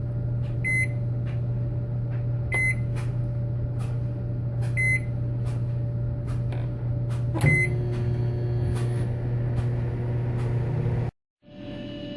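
A microwave oven running with a steady low hum, broken by four short high beeps spread over several seconds, the last with a click. The hum cuts off suddenly near the end.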